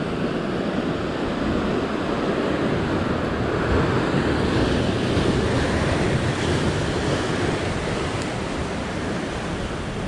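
Sea surf surging and breaking over a rock ledge, the wash building to its loudest around the middle and easing off toward the end.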